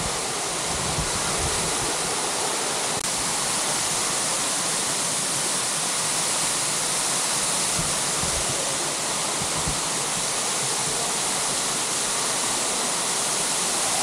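Waterfall: a steady rushing of falling water.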